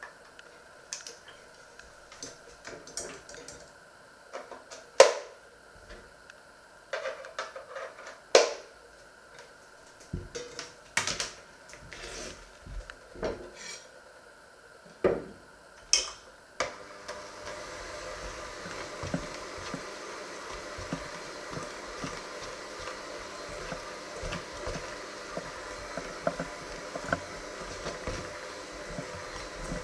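Sharp knocks and clinks of metal dough hooks and a stainless steel bowl being handled, then, a little past halfway, an electric hand mixer starts and runs steadily with its dough hooks kneading dough in the bowl.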